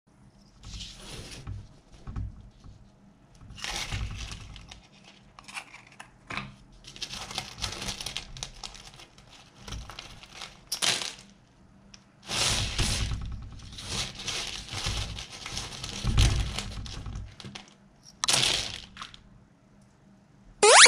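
Wooden matchsticks rustling and clicking against each other and a paper-covered surface as a handful is worked by hand and spread out, in irregular bursts with short pauses. A loud swooshing sound effect cuts in at the very end.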